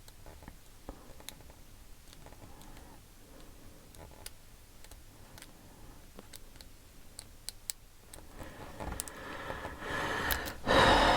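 Lock pick working the pins of a pin-tumbler lock under tension: scattered faint, sharp clicks as the pins are probed. Near the end a louder rubbing noise builds up.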